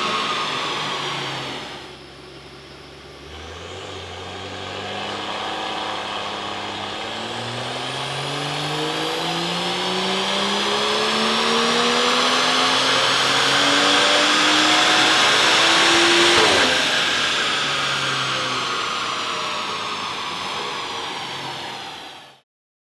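BMW M235i's 3.0-litre N55 twin-scroll turbo straight-six making a full-throttle pull on a rolling road, its pitch rising steadily for about twelve seconds to its loudest. The throttle then shuts and the revs fall away slowly, and the sound cuts off suddenly near the end.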